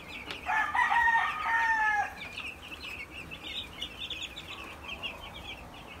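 Many young chicks peeping continuously in quick, high cheeps. From about half a second to two seconds in, a rooster crows once, louder than the chicks.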